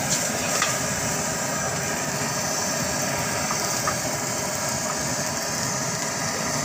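Steady rushing noise of a gas wok burner under a wok of frying rice, with a couple of faint clicks.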